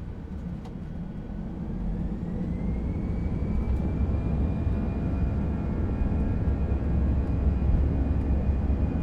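Airbus A319 engines heard from inside the cabin, spooling up to take-off thrust as the aircraft accelerates down the runway. A whine rises in pitch over the first few seconds and then holds steady, over a heavy low rumble that grows louder.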